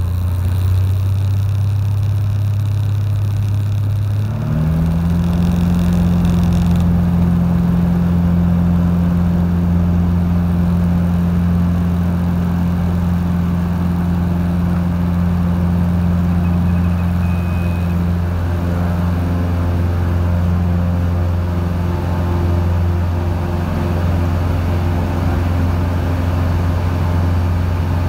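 Cessna 182's piston engine and propeller heard from inside the cabin, opening up to takeoff power about four seconds in with a quick rise in pitch, then held steady at full power through the takeoff roll and lift-off.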